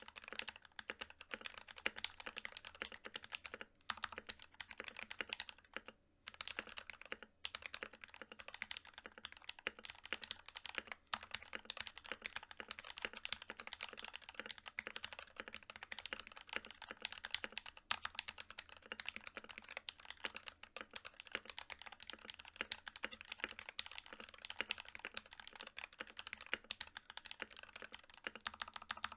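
Fast continuous typing on an NK65 Milkshake Edition mechanical keyboard: prelubed NK Silk Yellow linear switches with PBT Cherry-profile keycaps, an aluminum plate and a polycarbonate case. It makes a rapid stream of keystroke clacks, with a couple of short breaks about six and seven seconds in.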